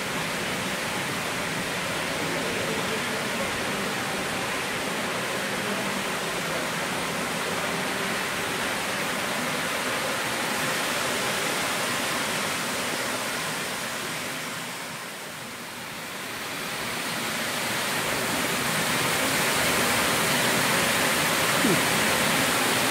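Water pouring from wall spouts into fountain basins, a steady rushing splash. It dips briefly about two-thirds of the way in, then comes back louder in the last few seconds.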